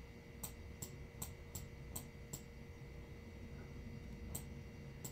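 Faint light clicks, about two and a half a second for the first couple of seconds, then a few more near the end, over a low steady hum.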